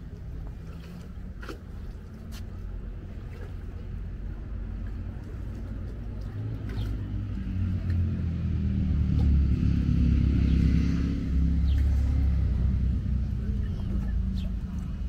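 A motor engine's low rumble passing by. It grows steadily louder, is loudest a little after the middle, then fades.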